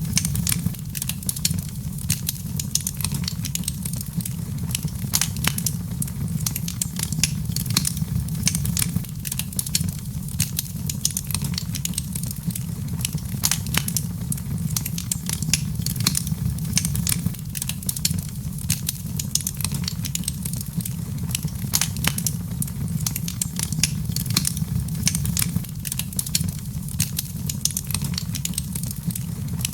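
Wood fire crackling in a fireplace: frequent, irregular sharp pops and snaps over a steady low rumble of the flames.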